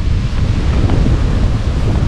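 Wind buffeting the microphone in an uneven low rumble.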